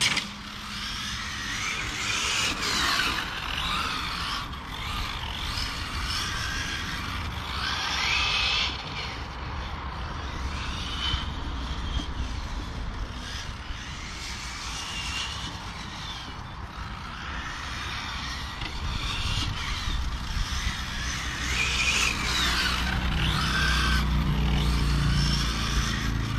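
Electric 1/8-scale on-road RC racing cars (Serpent SRX8 GTe) lapping the circuit, their motors whining up and down in pitch as they accelerate and brake through the corners. A low rumble builds near the end.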